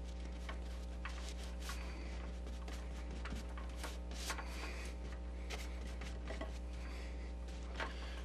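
Paintbrush working acrylic paint onto a canvas: a string of short scratchy strokes and light taps, over a steady electrical hum.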